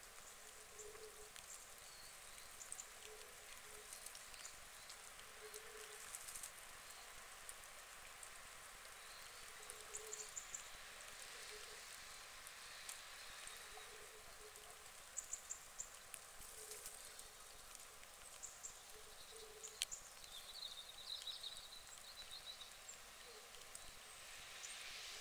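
Faint outdoor pond ambience: a soft hiss with small ticks and light water dabbling as ducks preen on the water. Distant birds chirp briefly a few times.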